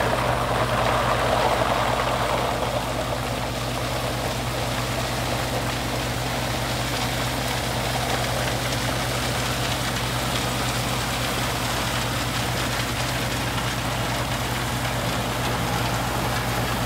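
Tracked excavator's diesel engine running steadily, with water splashing and pouring as the bucket drains and dips into the stream.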